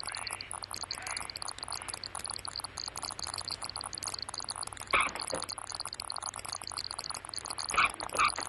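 Crackle and hiss of an old optical film soundtrack, with a few short, louder sounds about five seconds in and again near the end.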